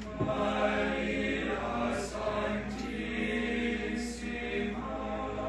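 Male choir of seminarians singing unaccompanied in harmony, holding sustained notes and moving from chord to chord.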